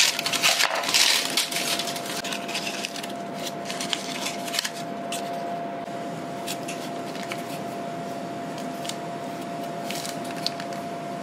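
Scissors snipping through baking parchment for about the first second and a half. After that come scattered light ticks as a small blade scores the floured sourdough loaf, over a faint steady hum.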